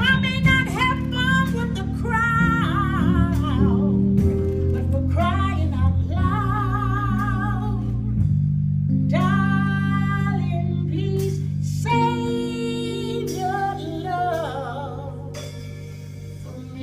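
A song: a singing voice holding wavering notes over guitar and bass.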